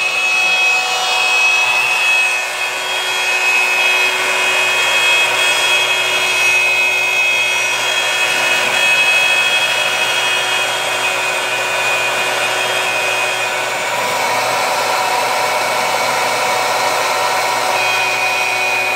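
Ridgid wood router mounted on a Maslow CNC sled running at speed while its bit cuts a curved groove through a plywood sheet: a steady high motor whine over the rushing noise of the cut.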